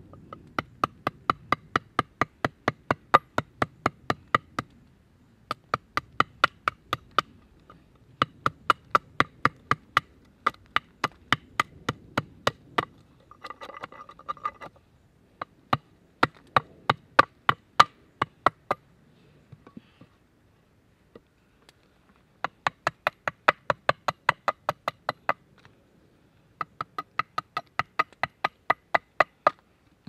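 Axe chopping into a log: quick, even strokes about four a second, each with a brief ringing, in runs of a few seconds with short pauses between.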